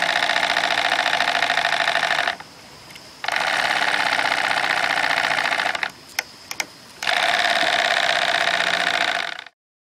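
Graham Industries TVR-1A twin-cylinder model steam engine running with a rapid, even exhaust beat. It stops dead twice for about a second as its reversing lever is set to mid-position, then starts again, with a couple of light metal clicks in the second pause. The sound cuts off shortly before the end.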